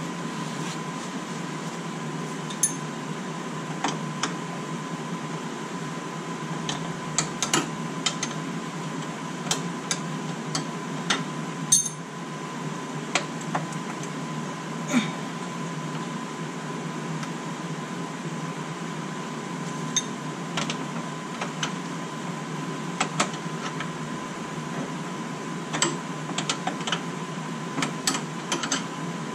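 Irregular light metallic clicks and taps of hand tools working a front brake line fitting on a 2003 Volvo XC70, over a steady hum with a faint high tone.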